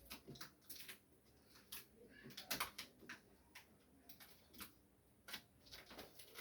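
Faint, irregular clicks and light knocks from a new refrigerator's parts and packaging being handled as they are taken off, with one louder knock about two and a half seconds in.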